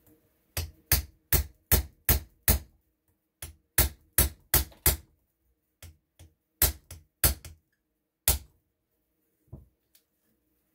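Small hammer tapping a pin punch to drive a pin out of an RWS 54 Air King air rifle's action: three runs of sharp metal taps, about three a second, then one fainter tap near the end.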